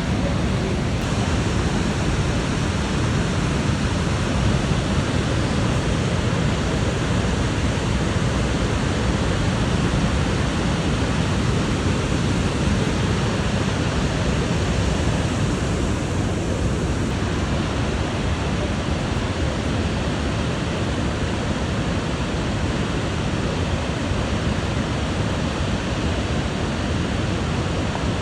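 Kravica waterfalls' cascading water, a steady, loud rush of falling water.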